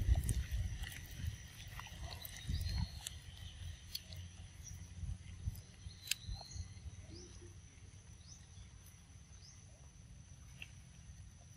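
A macaque chewing mouthfuls of ripe mango, with irregular wet mouth clicks and low thuds, busiest in the first three seconds and then thinning out.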